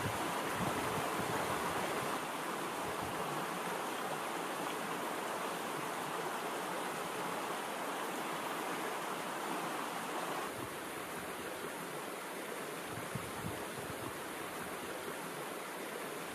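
Steady rushing noise like running water, with no distinct events; it dulls slightly about two seconds in and again about ten seconds in.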